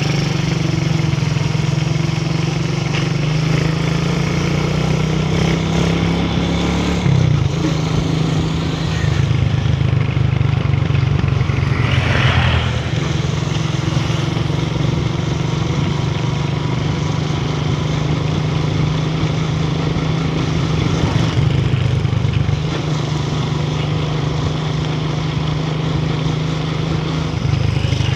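Motorcycle engine running steadily while riding along a road, with wind and road noise. The engine note shifts about seven seconds in and again near the end, and a short rushing noise passes over it about twelve seconds in.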